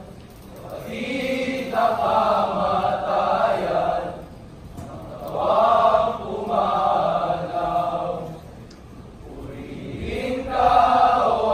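A choral-recitation group of male voices chanting in unison. The chant comes in three swelling, drawn-out phrases with short breaks between.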